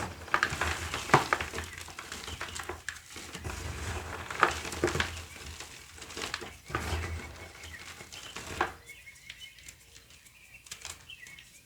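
Hands crushing and crumbling a dry, brittle block in a quick run of crunches and crackles, which stops about three-quarters of the way through. Faint bird chirps are heard after that.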